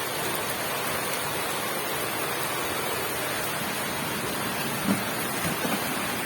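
Steady rain falling, an even hiss of drops, with a couple of faint knocks about five seconds in.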